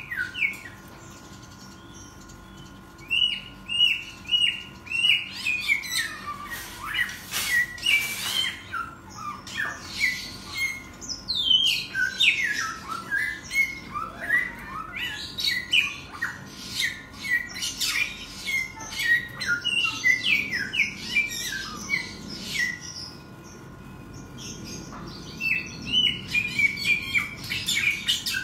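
Caged samyong songbird singing hard: long runs of quick whistled notes, many sliding downward, broken by a short pause near the start and another late on.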